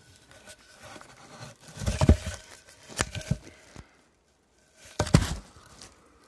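A wooden 4x4 block being handled and lifted out from against straw bales: straw rustling and crackling, with three heavier knocks of the wood about two, three and five seconds in.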